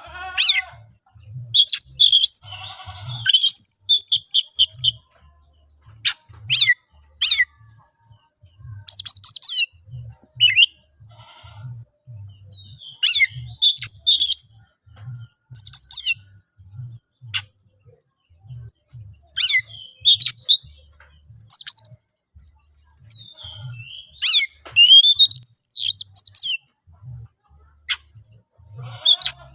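Oriental magpie-robin (kacer) singing loud, insistent phrases of whistles, quick rising trills and sharp chips, each a second or two long with short pauses between. This is the aggressive territorial song used as a bait call to provoke rival males into answering.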